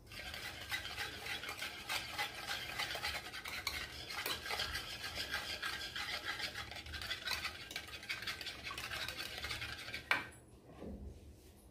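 Wire whisk beating curd with salt in a bowl: quick, even strokes of the metal wires scraping and clinking against the bowl. It stops near the end with one knock.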